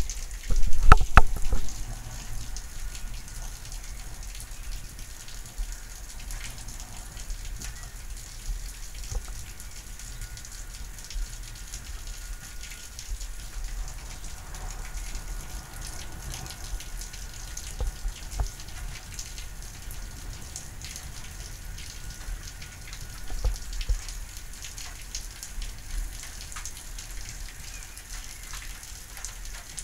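Steady rain during a thunderstorm: an even hiss with many small drop ticks. A few loud low thumps come in the first two seconds.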